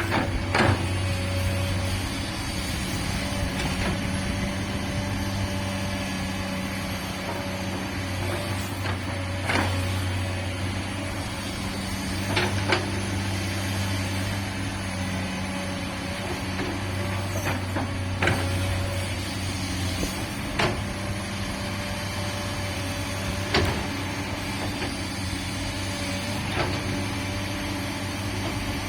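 Komatsu PC200-8 excavator's diesel engine running under varying load, its hum swelling and easing. Sharp clanks ring out every few seconds.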